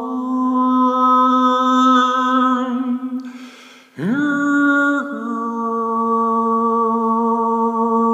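Overtone singing by a single voice: a held drone near one pitch with bright, shifting overtones sounding above it. About three seconds in the voice breaks off with a short breathy hiss. It then slides up into a new held drone, which drops slightly about a second later.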